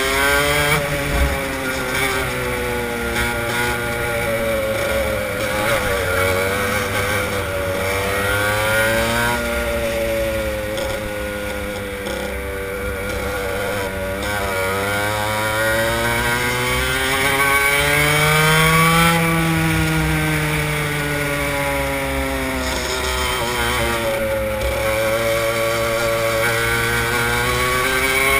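Kart engine heard from onboard, its pitch climbing as it accelerates along the straights and dropping as it slows for the corners, over and over.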